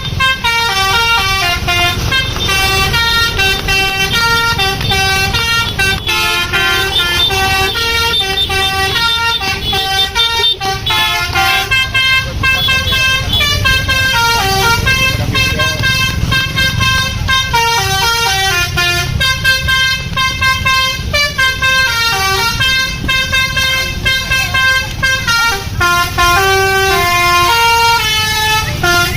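Basuri musical bus horn ('telolet') playing a continuous tune of stepped, held notes, repeating melodic phrases, over the low rumble of the bus.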